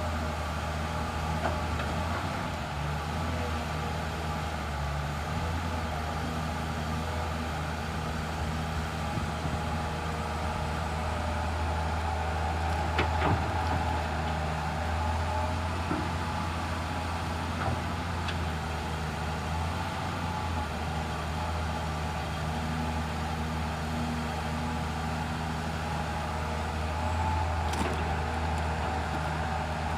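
Komatsu PC210 excavator's diesel engine running steadily as the machine works, with a couple of short knocks, one about halfway through and one near the end.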